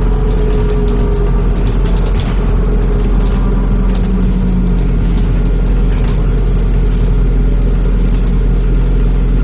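New Routemaster diesel-electric hybrid double-decker bus on the move, heard from inside the passenger saloon: a steady engine and drivetrain drone with road noise and faint clicks and rattles.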